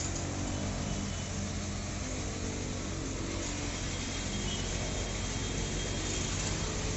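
Truck engine running steadily to power the truck-mounted hydraulic crane as it hoists a transformer, a constant low hum.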